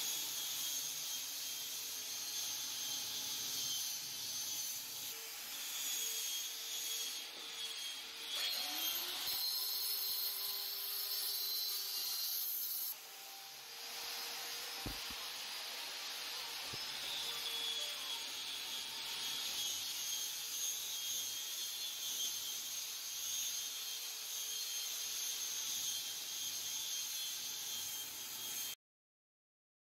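Scraping and rubbing of natural stone cladding tiles being slid and pressed into place on a wall, over a steady hiss; it cuts off abruptly near the end.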